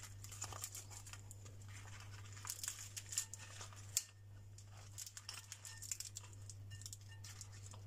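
Greasy, charred baking paper crinkling and rustling in irregular crackles as meat is pulled out of it with tongs, with a sharp click about four seconds in. A steady low hum runs underneath.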